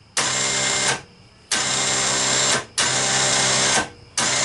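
Badlands Apex 5500 lb short-drum electric winch motor running in short bursts on its first test. Three runs of about a second each, with brief stops between them, and a fourth run starting near the end.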